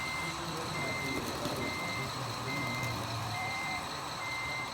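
RC model crawler loader reversing, its backup alarm beeping steadily at about one high beep a second over a low engine hum.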